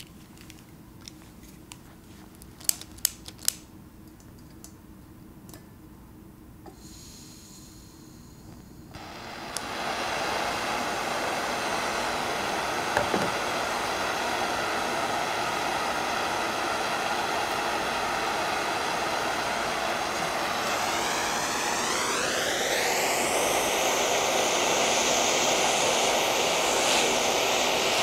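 A few sharp clicks, then a hand-held propane torch hissing and lighting about nine seconds in, after which its flame burns with a steady rushing noise. Near the end its tone sweeps upward and it grows a little louder.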